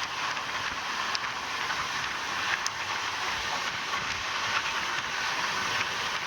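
Passenger train running along the track at speed: a steady rush of wheel-and-rail noise with a few sharp clicks scattered through it.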